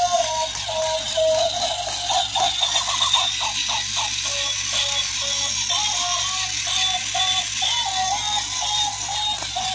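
Walking toy robot dog playing its built-in song, a simple stepping melody of single notes that wavers briefly a couple of seconds in, over the rattle of its plastic walking mechanism.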